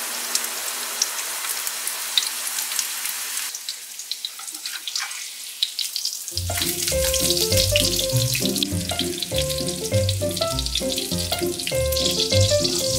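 Breaded pork schnitzel sizzling in plenty of hot oil in a frying pan, with many small crackles throughout, loudest for the first few seconds. Background music comes in about six seconds in.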